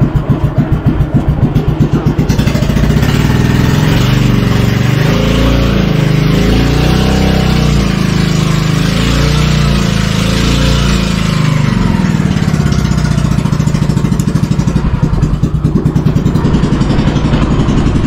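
Outrigger boat's engine running loud, throbbing in quick pulses, then rising and falling in pitch for several seconds as the revs change before settling back into a steady throb.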